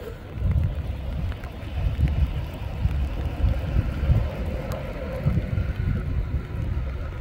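Wind buffeting the microphone outdoors: an uneven, gusting rumble.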